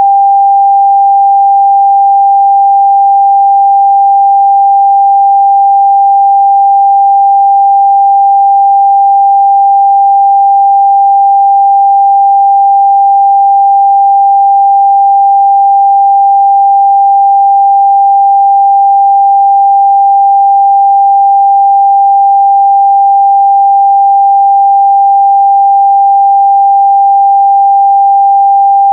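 Steady, loud 794 Hz sine-wave test tone, a single pure pitch held without change.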